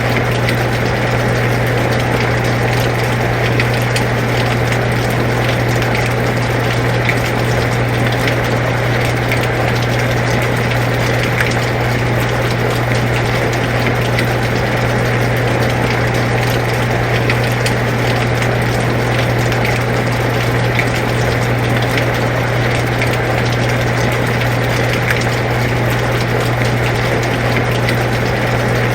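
An air conditioner running with a steady low hum, mixed with the even hiss of falling rain and faint scattered drop ticks.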